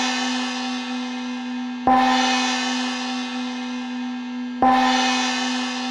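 A gong ringing, struck again about two seconds in and once more at about four and a half seconds, each stroke ringing on and slowly fading. It signals the end of a one-minute timed meditation.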